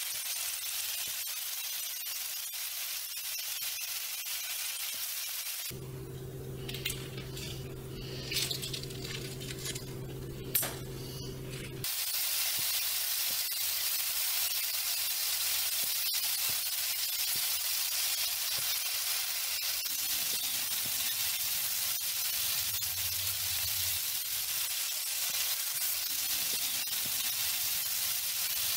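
Cherry tomatoes, spinach and scrambled eggs sizzling on a hot ceramic-coated griddle pan, with a silicone spatula stirring. For several seconds early on the sizzle drops away under a low steady hum with a few sharp clicks, then the sizzling comes back louder.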